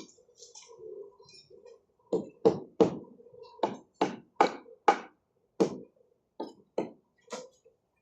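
A series of about a dozen sharp knocks, irregularly spaced, beginning about two seconds in, with faint quieter sounds in the first two seconds.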